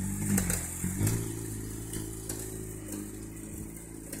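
Motorcycle engine revving as the bike pulls away, with a rise in revs about a second in, then running more steadily and fading as it rides off.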